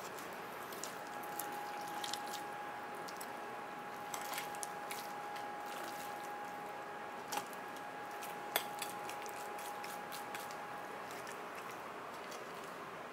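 Knife working through a raw chicken leg on a cutting board: soft wet squishing of the meat and scattered light clicks of the blade and hands, the sharpest a little past halfway, over a steady high-pitched hum.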